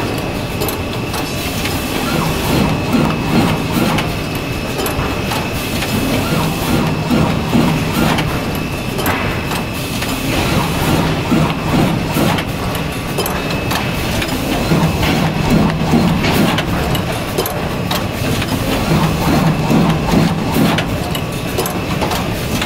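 Automatic double wire-o notebook binding and punching machine running through its cycle. A low hum swells and fades about every four seconds over a thin steady high tone, with scattered clicks and knocks.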